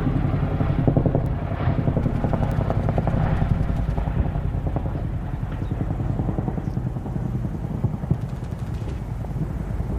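Battle ambience sound effect: a steady low rumble with an engine-like drone under a dense run of rapid knocks, easing off a little in the second half.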